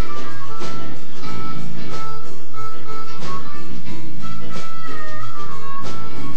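Live blues band playing: a high lead line of held, bending notes over bass and drum hits.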